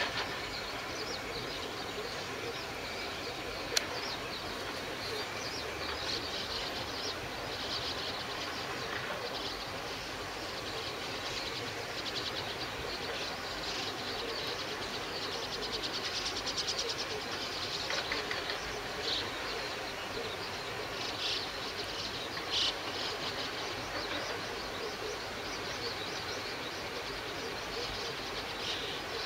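Steady hiss of rain falling on a flooded rice paddy. Scattered short high-pitched chirps run through it, with a quick trill about midway and a single sharp click a few seconds in.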